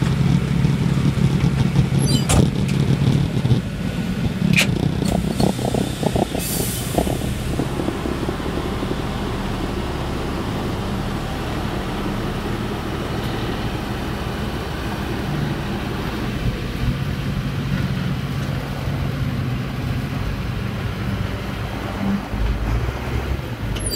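Heavy diesel machinery running steadily as an excavator's grab lifts a boat hull off a trailer, with a couple of sharp knocks in the first few seconds and a short hiss about six and a half seconds in.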